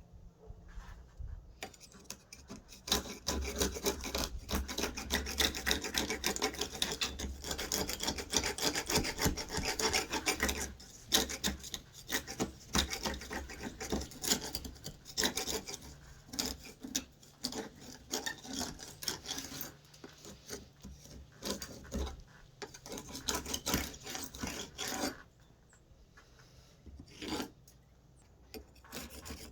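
Paintbrush bristles rubbing primer onto rough cedar wood in rapid strokes, starting about two seconds in, stopping about 25 seconds in, with a few more strokes near the end.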